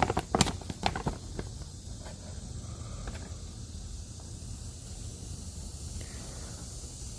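Paper crackling and rustling as a printed catalog is handled, a quick run of crinkles in the first second or so, then a steady background hiss.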